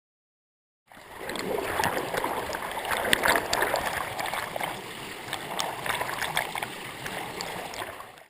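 Silence for about the first second, then rushing whitewater with splashes and knocks, as a kayak paddles on the river; it cuts off suddenly at the end.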